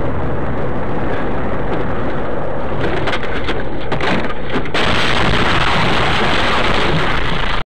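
Loud, steady rushing road noise from a moving vehicle, recorded by its dashcam. About five seconds in it turns louder and harsher as the vehicle collides with an oncoming truck, and it cuts off abruptly near the end.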